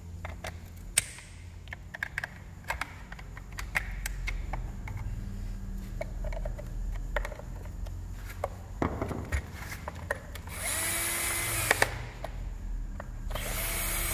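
An electric screwdriver runs in two short bursts of about a second each near the end, backing screws out of a STIHL FS 220 brushcutter's engine covers. Before that come scattered light clicks and knocks of tools and parts being handled.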